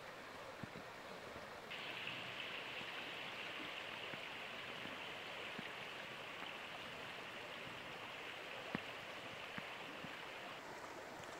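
Faint, steady rushing of a river. A brighter hiss sets in abruptly about two seconds in and falls away near the end.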